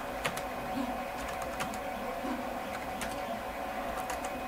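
Computer keyboard keys clicking as a short line of code is typed: scattered single keystrokes, some in quick pairs, over a faint steady electrical hum.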